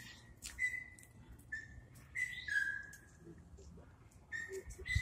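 A series of short, high-pitched chirping notes, about six of them, each starting sharply and lasting a fraction of a second.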